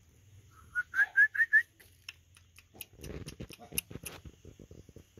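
Five quick whistled chirps, each rising in pitch, then about a second of rustling followed by a run of light clicks.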